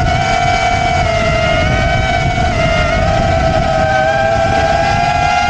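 FPV quadcopter's brushless motors and propellers whining steadily as heard from its onboard camera, the pitch wavering slightly with throttle, over a rough wind rumble on the microphone.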